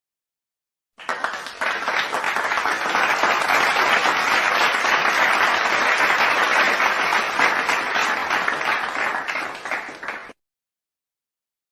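Stock applause sound effect: a crowd clapping, starting about a second in, holding steady for about nine seconds, then cut off abruptly.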